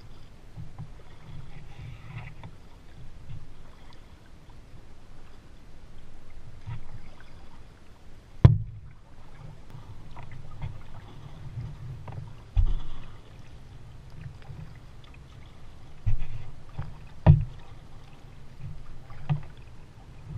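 Paddling a Pelican kayak on calm water, picked up by a camera on the hull: a low rumble with soft water sounds and a few sharp knocks, the loudest about eight seconds in.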